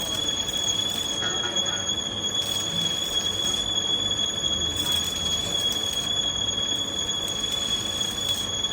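Heavy boring machine cutting steel, a constant high-pitched squeal over a steady machine din.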